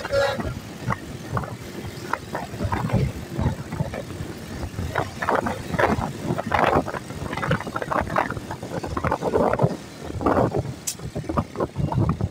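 Road traffic noise heard from a moving vehicle: engines running and rumbling unevenly in dense traffic, with a single sharp click near the end.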